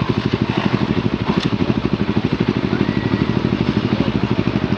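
Motorcycle engine running steadily, with a rapid, even beat of firing pulses.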